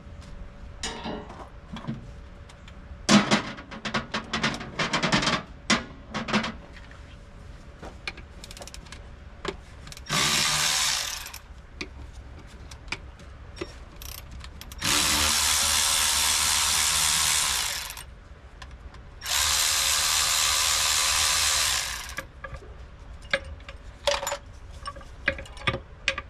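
Power ratchet running in three bursts, the last two about three seconds each, spinning out valve cover bolts on a Detroit Diesel 8V92. Before the bursts, a string of light metal clicks and knocks from tools and parts being handled.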